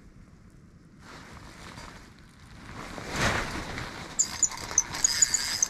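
Small ice-fishing reel being cranked as a hooked crappie is brought up, squeaking in a quick run of short, high chirps over the last second and a half. About three seconds in there is a brief rustle.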